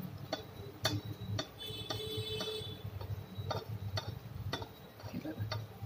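Chirote deep-frying in hot ghee in a kadhai, a steel spatula splashing the ghee over them: the oil crackles with irregular sharp pops over a low steady hum.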